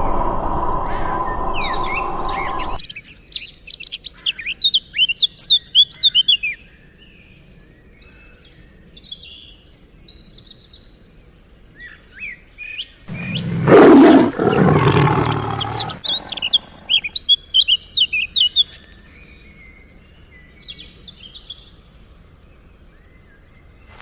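Songbirds chirping in flurries of quick, high calls. A steady lower-pitched sound cuts off suddenly about three seconds in, and a loud, lower sound lasting about three seconds comes midway.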